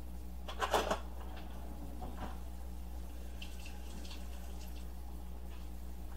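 A brief clink of a spoon, most of it about a second in, over a steady low hum, followed by a few faint ticks.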